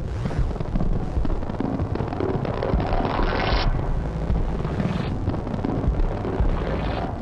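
Heavily effected electronic sound from a Yamaha MR10 drum machine run through delay and glitch-looper pedals: a dense, continuous rumble with a steady low hum underneath. Bands of hiss swell and cut off abruptly, about halfway through and again near the end.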